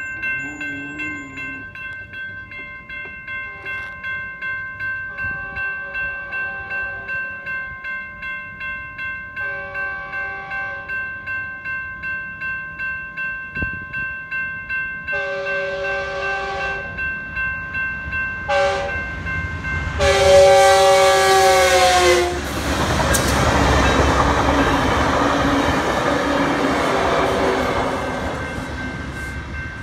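Grade-crossing warning bells ring steadily, about twice a second, as a Metrolink commuter train approaches blowing its horn. There are five blasts, each louder than the last, with a short one before the final long blast, which drops in pitch as the cab car reaches the crossing. The train then rumbles and clatters past over the rails.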